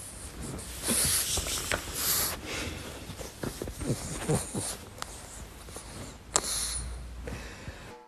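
A pug snorting and snuffling in short, noisy bursts, with a few sharp clicks among them.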